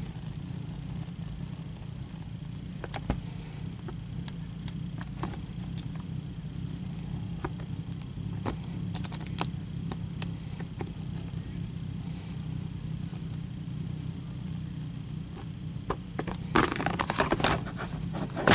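Box-cutter blade drawing slowly through a rubbery plastic floor liner, heard as faint scattered ticks and scrapes over a steady low hum. Near the end comes a burst of louder crackling and knocks as the cut-out piece comes free of the liner and the knife is set down.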